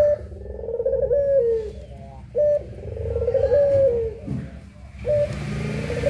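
Puter pelung (Barbary dove) cooing in repeated phrases: a short high note, then a long coo that falls slightly in pitch, starting again about every two and a half seconds.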